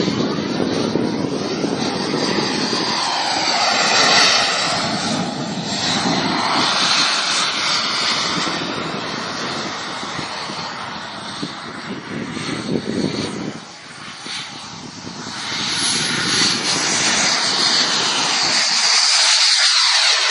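Jet fighter's engine roar during an airshow display, swelling and fading with a sweeping whoosh as the jet manoeuvres and passes. It dips briefly about two-thirds of the way through, then builds again to its loudest near the end.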